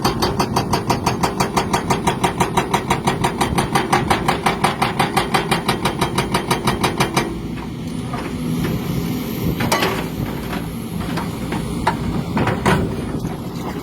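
Vehicle engine running with a rhythmic 'tot tot tot' knock, about six beats a second, the noise the owner is asking the cause of. About seven seconds in the knocking stops, leaving a lower steady running sound with a few sharp clicks.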